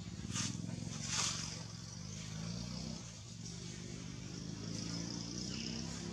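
A motor vehicle's engine running steadily with a low hum, starting right at the beginning, with two brief high-pitched sounds about half a second and a second in and a steady high hiss behind.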